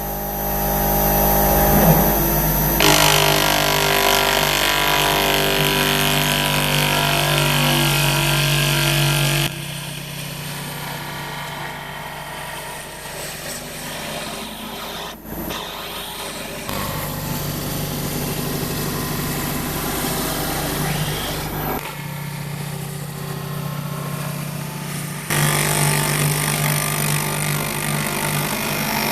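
CNC router spindle turning a fly cutter at about 3000 RPM, surfacing a UHMW plastic plate: a steady whine with cutting noise. The sound changes level abruptly several times.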